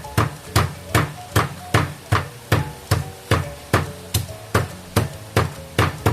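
Lemongrass and ginger being smashed: a steady run of sharp strikes, about two and a half a second, with faint background music under them.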